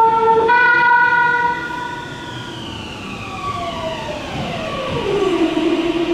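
Meitetsu limited express train's music horn sounding: a loud, steady note that steps up in pitch about half a second in, then slides steadily down over about four seconds and settles on a low note near the end.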